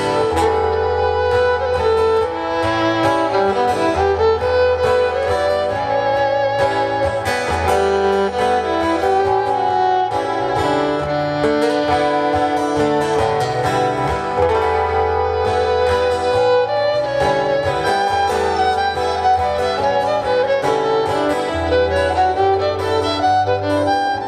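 Instrumental break in a live acoustic song: a lead string instrument plays a melody over guitar accompaniment and a steady bass line.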